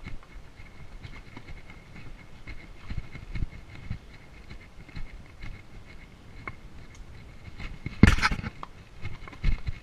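Morgan horse walking up a rocky trail, its hooves clopping and scuffing on stone and dirt. About eight seconds in there is one loud, short rushing burst.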